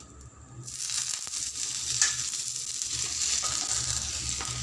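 Butter sizzling as it melts on a hot dosa tawa while bread toasts. The sizzle starts about half a second in, swells over the next second and then holds steady, with one light tap near two seconds in.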